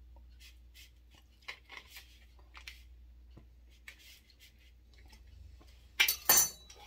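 Light scattered clicks and taps of kitchen utensils on a work surface as biscuit dough is handled, then a louder clatter of utensils about six seconds in.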